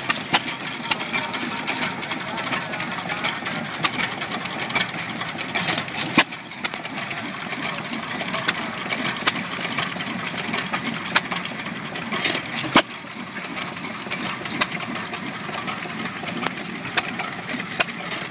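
Stover hit-and-miss stationary gas engine running, its flywheels coasting with a steady clatter of clicks and knocks, and a much louder bang about every six seconds.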